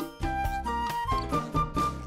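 Intro theme music: a stepping melody over a regular beat.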